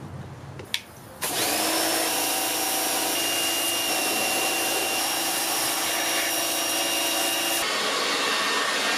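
Small electric pressure washer running: a steady motor whine over the hiss of the water jet spraying the aluminium intake manifold. It starts about a second in.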